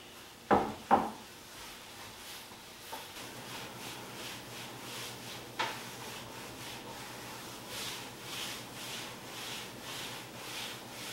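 Two sharp knocks on wood, a click, then a cloth rubbing back and forth over a wooden tabletop in even strokes, about two a second, as the table is wiped and polished.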